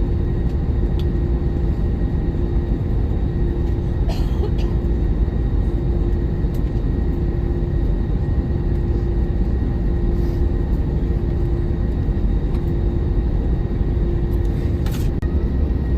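Steady cabin noise inside an Airbus A321-200 with its engines running at a steady setting: a low rumble under a constant hum tone. A couple of brief rattles come about four seconds in and again near the end.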